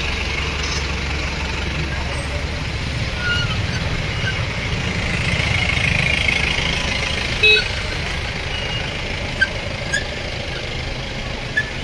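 Vehicle engines running at slow speed, a steady low rumble, with voices in the background and a few short high chirps. A brief louder burst comes about two-thirds of the way in.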